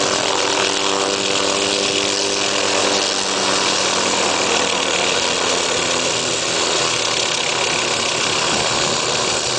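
Hughes 500 helicopter's turboshaft engine and rotor running steadily on the ground, a loud even rush with a humming tone underneath that fades out about three seconds in.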